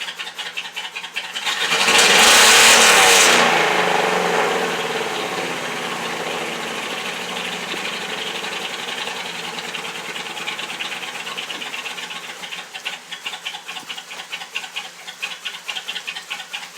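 Truck engine idling with a fast even pulse, goosed hard about two seconds in so that it rises to a loud rev for a second or two, then drops back and settles to idle again.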